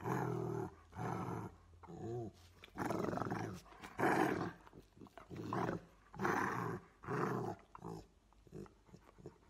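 Rottweiler making a string of short growling grumbles, about one a second, each lasting around half a second.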